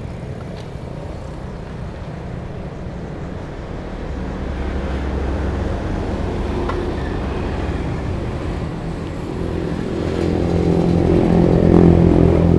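Road traffic of passing motorbikes and a truck, a steady engine hum that grows louder. Near the end a motorcycle engine runs close by, the loudest sound.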